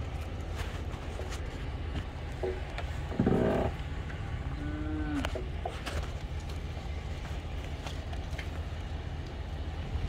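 A calf moos once, a short call that rises and falls in pitch, about five seconds in, just after a louder rough burst of noise. A steady low rumble runs underneath.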